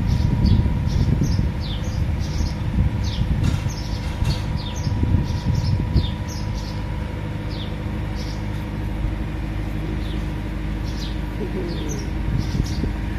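Birds chirping over and over in short falling chirps, over a steady hum and a low rumbling noise that is heavier in the first half.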